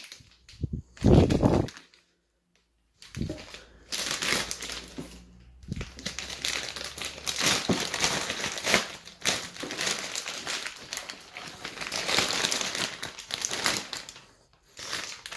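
Packaging rustling and crinkling as an espresso grinder is taken out of its box, in irregular bursts, with about a second of dead silence around two seconds in.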